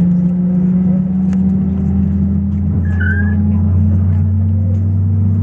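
Airbus A320 cabin noise heard from a passenger seat: a loud, steady low drone whose pitch rises slowly. A brief high squeak sounds about three seconds in.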